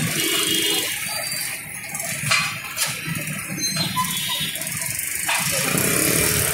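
Steady din of a busy street-food restaurant frontage, with a few sharp clatters about two and three seconds in.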